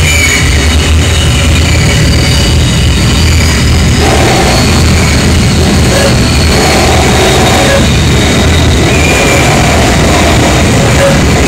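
Harsh noise from a DIY oscillator circuit with add-on capacitors, fed through a Line 6 DL4 delay: a loud, dense drone of heavy low buzzing under stacked, steady high whistling tones. About four seconds in a new pulsing mid-pitched tone joins as the circuit is handled.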